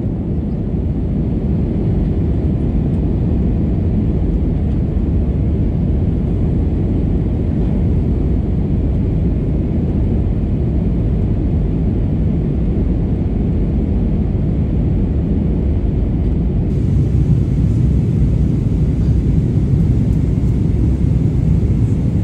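Airbus A320 cabin noise: the steady low rumble of the jet engines and airflow heard from a window seat, growing slightly louder about seventeen seconds in.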